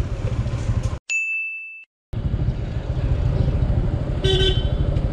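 TVS Apache single-cylinder motorcycle engine running with a fast low pulse while riding. About a second in it breaks off into a second of silence with a short high beep, then resumes. A vehicle horn honks briefly near the end.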